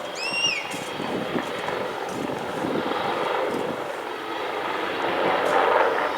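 Helicopter in flight, a steady rushing engine and rotor noise that grows louder near the end.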